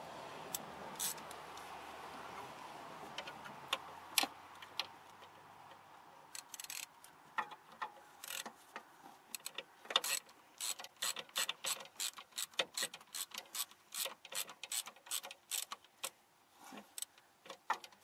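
Hand ratchet clicking as a starter mounting bolt is turned in, at first in scattered clicks, then from about six seconds in as quick, uneven runs of clicks. A steady hiss fades over the first few seconds.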